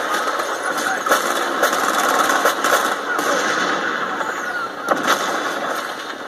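Film battle soundtrack played through a TV's speakers and picked up by a phone: scattered gunshots over a continuous roar, with the deep bass missing so it sounds thin.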